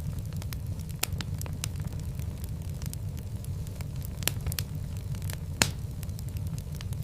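Wood fire burning in a fireplace: a steady low rumble of the flames with frequent sharp crackles and pops, one louder pop about five and a half seconds in.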